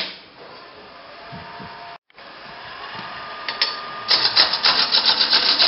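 Wood lathe running while a bowl gouge cuts the spinning wooden bowl blank in a pull cut. The cutting noise rises and turns loud and rough from about four seconds in, after a brief dropout about two seconds in.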